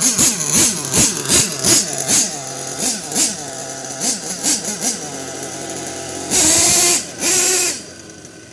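Hobao MT RC monster truck's engine revving in quick blips, its pitch rising and falling about twice a second. Near the end come two louder held bursts of throttle.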